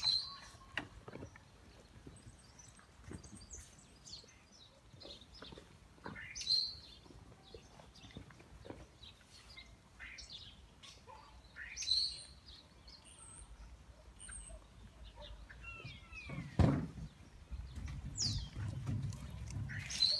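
Labrador puppies playing on a wooden pallet: scattered light knocks and scuffs of paws on the boards, with one loud thump about three-quarters of the way through. A bird gives a short rising chirp every six seconds or so.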